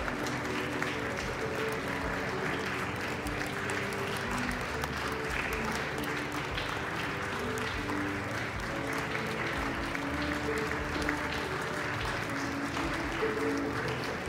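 Steady applause from a seated crowd, with music of held notes playing underneath.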